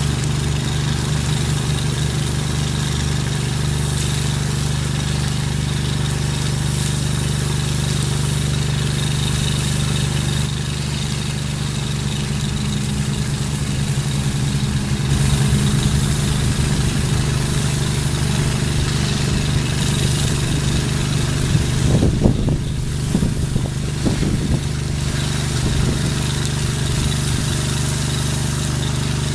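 Gas-engine pressure washer running steadily, with the hiss of its water jet spraying. A few uneven low bumps come about three-quarters of the way through.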